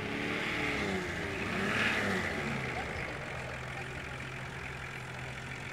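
Nissan 4x4's engine revving up and falling back twice in quick succession, then running at a steady, lower pace while off-roading in a clay pit.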